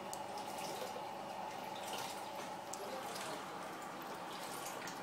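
Steady hum of a powered LED light rig with a cooling fan, a band of tone just under 1 kHz, with faint irregular ticks.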